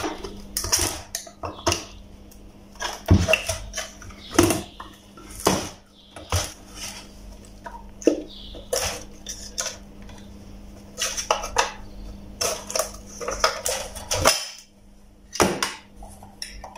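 Plastic end cap being worked off an electric bug zapper's housing: irregular clicks, knocks and rattles of plastic and metal, the loudest a few sharp knocks about four and a half, five and a half and fifteen and a half seconds in.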